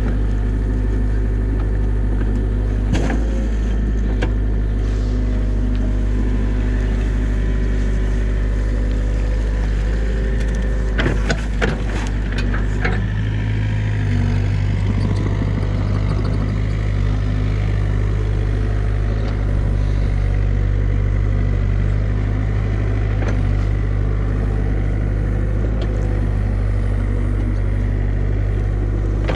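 New Holland mini excavator's diesel engine running steadily as the machine digs, with a cluster of sharp metallic knocks about 11 to 13 seconds in.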